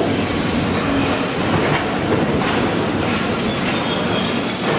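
Tracked demolition excavator working through rubble: a steady dense clatter and grinding of debris and metal, with several brief high metallic squeals and a few sharp knocks.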